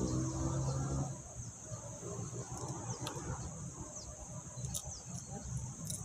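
Steady high-pitched drone of insects, with a few short bird chirps over it and a low rumble underneath.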